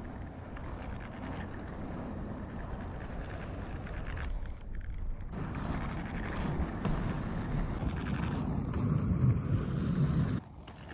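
Inline skate wheels rolling on rough asphalt, a continuous gritty rumble mixed with wind on the microphone. It dips briefly about halfway, grows louder toward the end and then cuts off abruptly.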